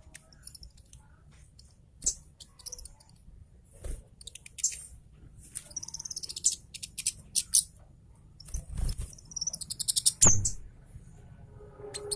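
Scarlet-headed flowerpecker (cabe Jawa) singing hard: a fast, dense run of very high, thin chirps and rapid rattling trills, with sharp 'cit' notes. A couple of low thumps come near the end.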